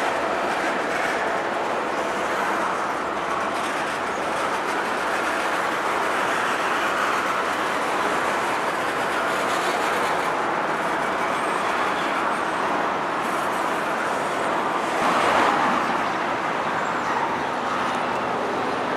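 Freight cars of a Montana Rail Link manifest train rolling past close by, wheels running steadily on the rails, with a brief louder swell about fifteen seconds in.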